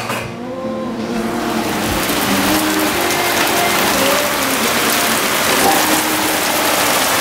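A hailstorm with heavy rain pelting a wooden deck, a metal barbecue grill and a pool: a dense, steady hiss of many small impacts that grows louder over the first second or two.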